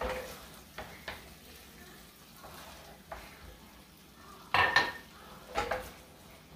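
Wooden spoon stirring and scraping a tomato and onion sauce around a metal frying pan, in short strokes over a low steady sizzle; the loudest strokes come about two-thirds of the way in.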